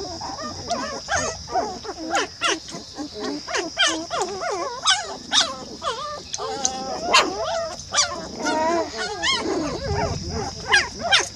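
A litter of young puppies whining and squealing: a continuous run of short, overlapping high-pitched calls, several a second, as they jostle and climb over each other.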